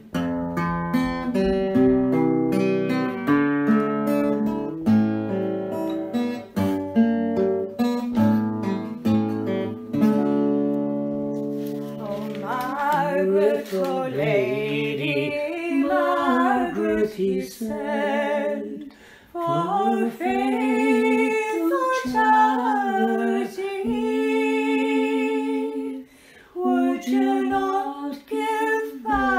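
Folk ballad instrumental break on a plucked string instrument, picked notes over a bass line, then a solo voice takes up the tune and sings unaccompanied from about twelve seconds in.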